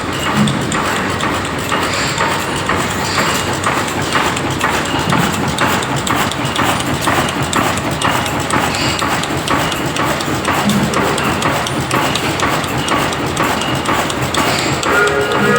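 1910 MAN air-blast diesel engine running, a steady rhythmic mechanical clatter of repeated knocks. A pitched tone joins in near the end.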